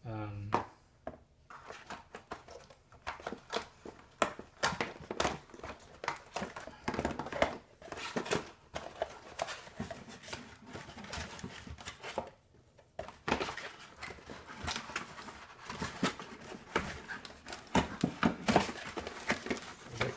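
Cardboard packaging rustling and scraping as pump parts are lifted out of their box, with irregular light knocks and clicks of metal and plastic parts being handled. There is a short lull about two-thirds of the way through.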